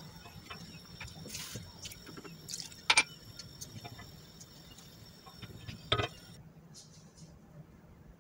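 A wooden spoon stirring tomato sauce in a stainless steel pot: faint scraping and small ticks, with two sharper knocks, one about three seconds in and one about six seconds in.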